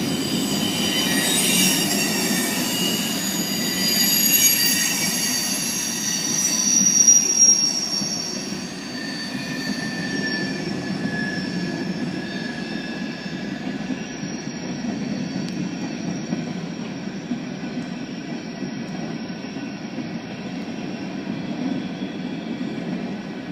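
Freight cars of a mixed freight train rolling past with a steady low rumble. Several high wheel squeals ring out over it in the first half, loudest about seven seconds in, then fade, leaving only the rumble of the wheels on the rails.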